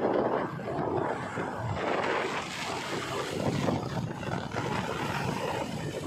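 JCB 3DX backhoe loader's diesel engine running as the machine drives along a paved road, with tyre noise and wind buffeting the microphone.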